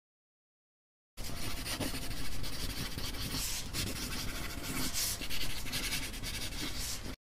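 Pen scratching across paper in a run of writing strokes, swelling and fading with each stroke. It starts suddenly about a second in and cuts off suddenly near the end.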